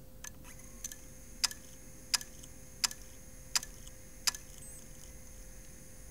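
IBM Microdrive, a 1 GB miniature hard disk in the Kodak DCS Pro SLR/c's CompactFlash slot, spinning with a thin high whine and clicking at an even pace, seven clicks about 0.7 s apart, the first two faint, the last a little after four seconds in.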